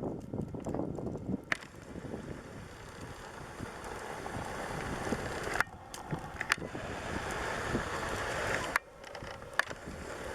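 Wind blowing across the microphone in gusts, rising and falling and dropping away suddenly twice, with a few sharp clicks.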